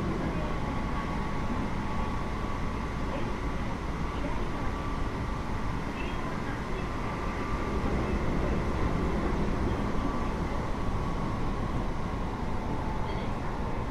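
Keio 8000 series GTO-VVVF electric train running at speed, heard from inside the car above its main controller. A steady rumble of wheels on rail, with faint steady whining tones over it.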